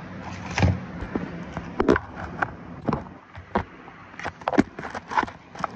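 Irregular clatter of objects being handled, a dozen or so sharp knocks and clicks at uneven intervals, some ringing briefly.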